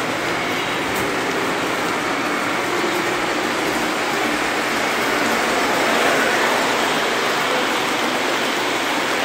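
Model train rolling steadily along the track, a continuous clattering rush of wheels and motor picked up close by the camera riding on board.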